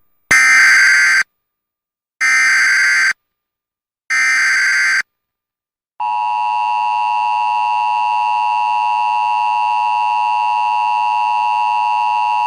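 Emergency Alert System tones: three short bursts of screeching digital data (the SAME header), each about a second long, then about six seconds in the long, steady EAS attention tone begins. Together they announce an emergency alert, here a flash flood warning.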